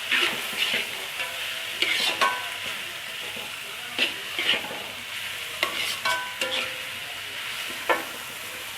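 Squid frying in a pan with chili and tomato, sizzling steadily while being stirred: a utensil scrapes and knocks against the pan every second or so, with a few short metallic rings. The stirring stops about 8 seconds in, leaving only the sizzle.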